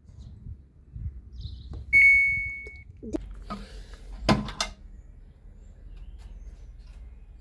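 Samsung Wobble washing machine control panel giving one high electronic beep, just under a second long, about two seconds in, as a button is pressed. A sharp knock and some rustling follow about four seconds in.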